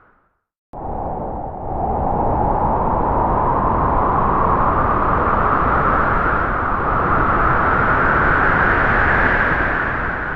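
Halloween ghoul sound effect: after a short silence, a loud, noisy rushing drone starts suddenly and rises slowly in pitch, holding steady before it starts to fade near the end.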